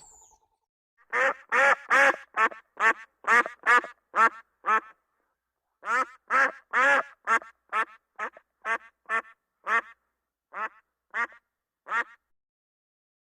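A duck quacking in two long runs of harsh quacks, about two to three a second, each run starting loud and getting quieter toward its end.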